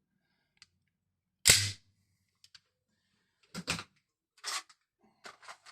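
Gas-powered replica BB pistols firing: one loud sharp shot about a second and a half in, then several weaker pops spread over the next few seconds, with small clicks between them.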